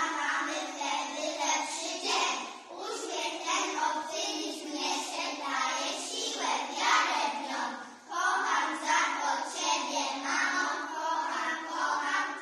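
A group of young children singing together in unison, with a short break about eight seconds in.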